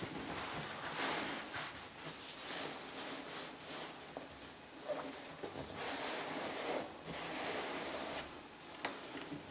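Fabric rustling and rubbing in repeated swells as hands shift and smooth a jacket and its lining flat, with one sharp click near the end.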